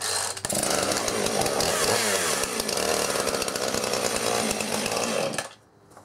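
Gas two-stroke chainsaw pull-started: the engine catches within half a second and runs loudly for about five seconds, its pitch rising and falling as it revs, then cuts off suddenly.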